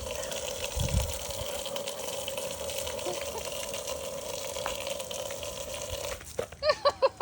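Water from a garden hose spraying steadily out of a hose-fed toy rocket, a constant hiss with a steady hum under it. It cuts off about six seconds in, and a wavering voice follows near the end.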